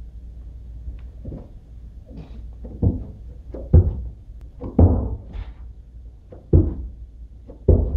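Hands thudding onto carpeted stair treads as a person walks on his hands up a staircase: heavy dull thumps at irregular spacing of roughly one a second, starting about three seconds in.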